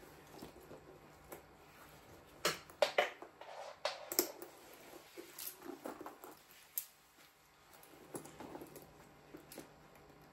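Scattered light clicks and taps with some rustling, as a shoulder strap is clipped onto a handbag.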